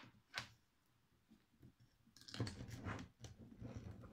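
Faint handling of a resin ball-jointed doll's neck stringing: a small click about half a second in, then, from about two seconds in, a stretch of rubbing and scraping as fingers work the elastic cord and S-hook to hook the head on.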